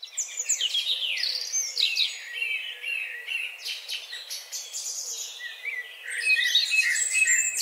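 Birds chirping and singing, many quick overlapping calls.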